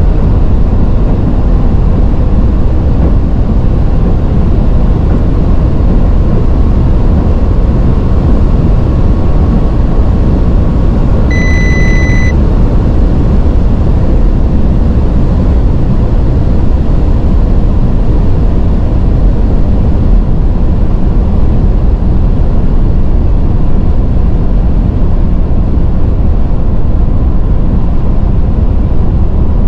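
Cabin noise of a Bentley Continental GT Speed's W12 engine under load at well over 200 km/h, heard as a loud, steady rush of engine, wind and tyres as the car pulls toward 300 km/h. A single short electronic beep sounds about eleven seconds in.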